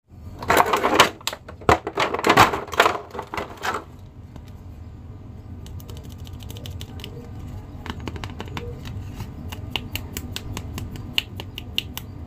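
Clear plastic blister tray crinkling and crackling loudly for the first few seconds as action figures are handled in it, then softer scattered clicks and crackles of the plastic.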